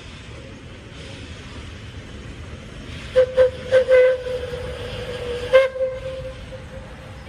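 Narrow-gauge steam locomotive sounding its steam whistle on one note: a quick run of short toots, a held quieter note, then one more sharp toot that trails away. A steady low rumble of the train runs underneath.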